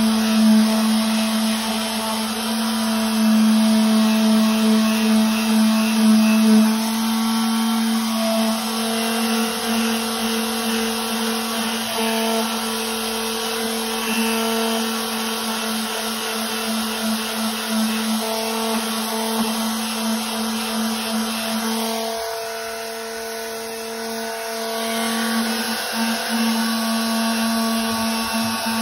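Ozito orbital sander running steadily as its pad sands the end of a rubber pool-table cushion. It eases slightly for a few seconds about three quarters of the way through.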